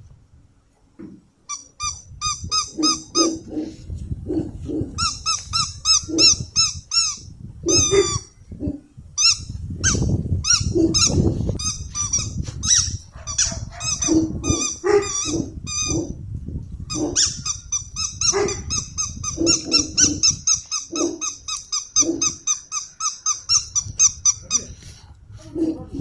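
A puppy toy squeaking in quick repeated chirps, about four or five a second, in runs with short breaks, while Boerboel puppies growl at it.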